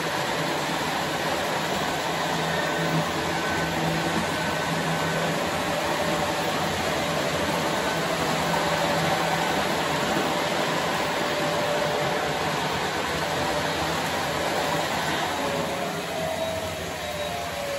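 Model trains running on a layout: a steady rumble of wheels rolling on the track with a faint whine of the locomotive motors, a little quieter near the end.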